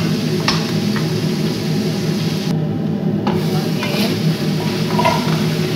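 Meat and vegetables sizzling in a hot pot while a spatula stirs them, with scraping and occasional sharp taps of the spatula against the pot.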